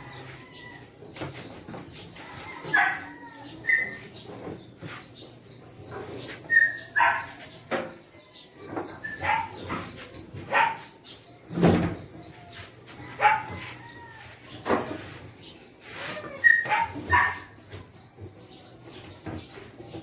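Short animal calls, most likely a dog barking, repeating about a dozen times, one every second or two, with faint clicks between them.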